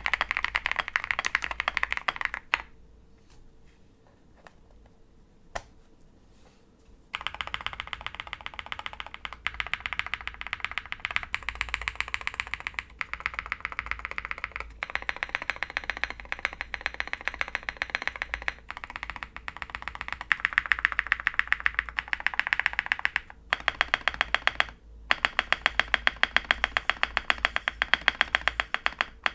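Fast typing on an OwLabs Jelly Epoch mechanical keyboard with lubed Konpeitou switches, a polycarbonate plate, full foam and MT3 PBT keycaps. The typing stops about two and a half seconds in, leaving a gap of some four seconds broken by a single keystroke, then resumes as steady rapid typing.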